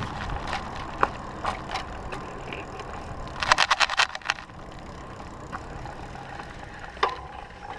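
Bike-mounted camera rattling in its mount as the bicycle jolts over bumps, with a quick burst of rattles about three and a half seconds in, over a steady low rumble of tyres and wind.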